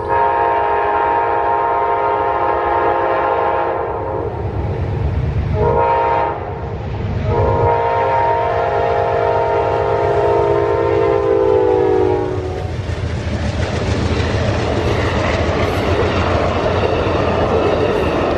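Diesel locomotive horn sounding the end of the grade-crossing signal: a long blast, a short blast and a final long blast whose pitch drops as the locomotive passes. The train then rolls through the crossing, its wheels clacking over the rail joints.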